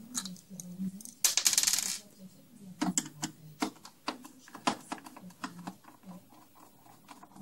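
Small screws being backed out of a plastic instrument-cluster housing with a screwdriver. A short rasping rattle comes about a second in, then a scatter of light metallic clicks and taps as the screws are set down on the bench and the plastic housing is handled.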